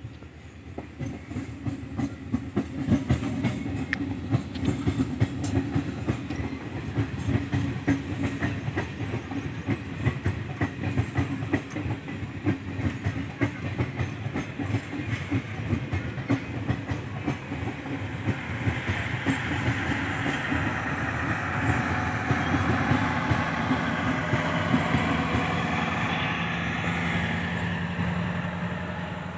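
Diesel-electric multiple unit (DEMU) passenger train passing close by, with a continuous clickety-clack of coach wheels over the rail joints. In the last third the diesel power car draws level, adding a steady engine hum and louder running noise.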